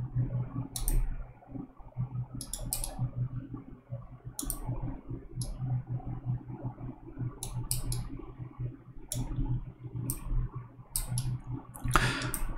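Sharp computer mouse clicks, scattered singly and in quick runs of two or three, over a low steady hum.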